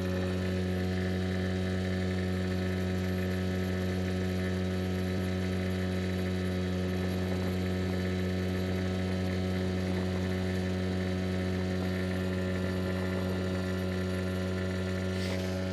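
Mercury 5 hp outboard motor on an inflatable boat running steadily at speed, a constant even drone that holds its pitch throughout.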